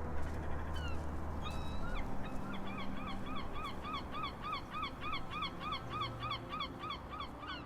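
Geese honking: a few scattered calls, then a quick steady run of about four honks a second lasting around five seconds.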